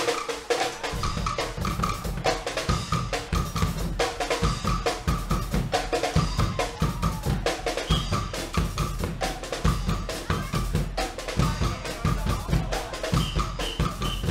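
Guggenmusik band playing a march: bass drums and snare drums pound a steady beat under held brass chords. The heavy low drums come in about a second in.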